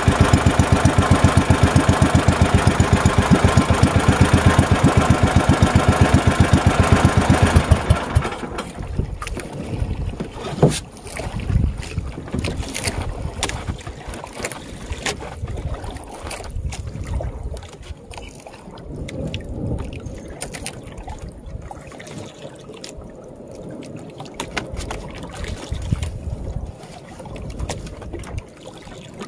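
An outrigger fishing boat's small engine running with a fast, even beat, which cuts off about eight seconds in. After it stops, quieter water sounds and scattered small knocks and clicks follow as the handline is worked.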